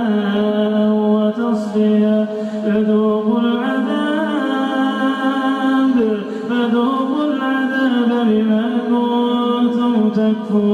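Male Quran reciter chanting in long, drawn-out melodic phrases, holding and ornamenting the vowels with slow turns in pitch.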